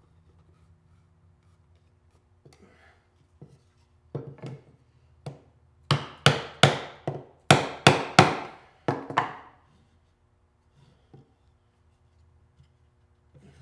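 A wooden tusk wedge being driven into a tenon with sharp hammer blows on wood. There are a couple of light taps, then about a dozen quick, sharp knocks, loudest near the middle, as the wedge seats and draws the joint tight.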